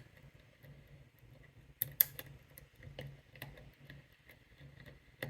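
Faint, irregular metallic clicks and ticks of a lock pick working the spool pins of an American 1100 padlock under light tension, with a sharper click about two seconds in.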